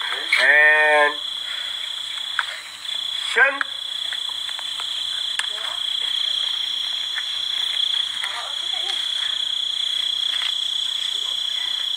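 Night chorus of insects, a steady high-pitched buzz, with a frog calling: one loud croak about half a second in lasting most of a second, a short rising call about three and a half seconds in, and fainter calls later.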